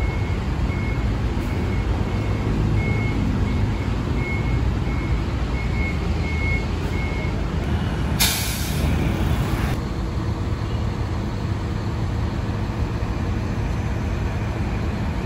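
Diesel engine of a Hino RM bus idling with a steady low rumble, with a string of short high beeps through the first half. About eight seconds in, a loud hiss of compressed air from the bus's air system lasts about a second and a half.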